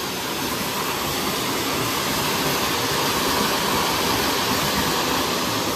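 Sparkler firework burning with a steady, loud rushing hiss that swells over the first second or two.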